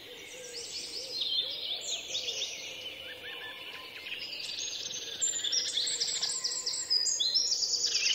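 Dawn chorus: several songbirds singing at once, a dense layer of overlapping chirps and trills that grows a little louder about five seconds in.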